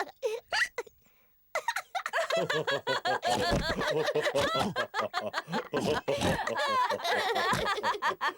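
A cartoon family of voices laughing together, several voices at once, starting about two seconds in after a few short sounds and a brief silence.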